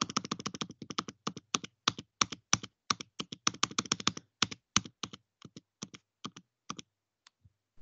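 Computer keyboard keys tapped rapidly, about five or six presses a second, skipping forward through presentation slides. The tapping thins out and stops near the end.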